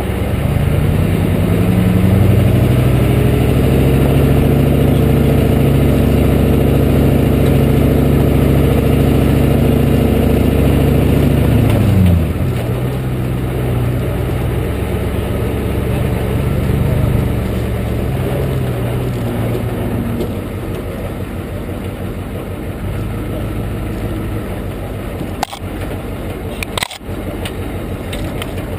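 A 1993 Ford F-250's 7.3-litre IDI V8 diesel running under steady load at low speed, heard from the front fender along with tyre and wind noise. About twelve seconds in the engine note falls away and then runs lower. Two sharp knocks come near the end.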